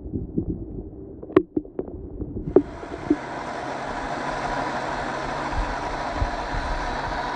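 A few sharp knocks, then about two and a half seconds in a steady rushing noise with a faint whine starts up: a 1/10-scale RC off-road car's electric motor and drivetrain running as it drives.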